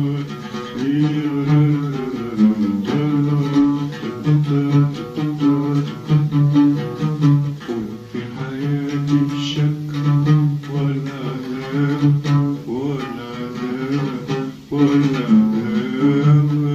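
Oud plucked in a rehearsal of a song melody, with an older man's voice singing along in long held notes that slide between pitches.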